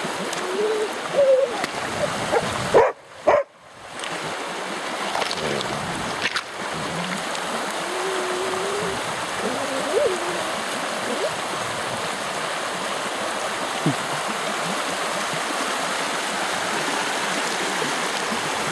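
Shallow river running over a gravel riffle: a steady rush of water. A few short wavering whines and a couple of sharp clicks come in the first half.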